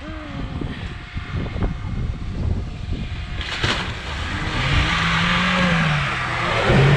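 Off-road vehicle's engine revving under load, getting louder about halfway through, its pitch climbing and then falling back.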